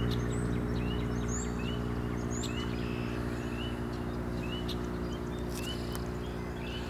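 A steady low hum with several pitched layers, the loudest sound, under short rising chirps that repeat roughly once a second.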